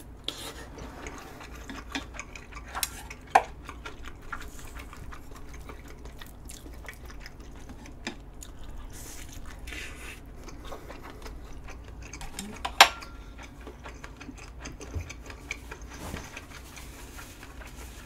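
Eating at a table: scattered quiet clicks and taps of metal chopsticks against bowls and dishes. Two sharper clinks come about three and thirteen seconds in, the second ringing briefly.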